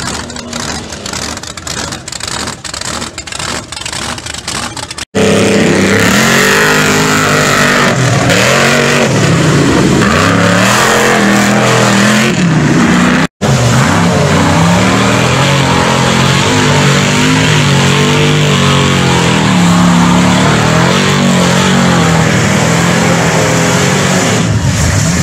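For about the first five seconds, a mega truck's engine runs at a lower level with a rapid, uneven pulsing. After an abrupt cut, off-road trucks' engines rev hard through a mud pit, the pitch climbing and dropping again and again. The revving breaks off for a moment at a second cut about thirteen seconds in.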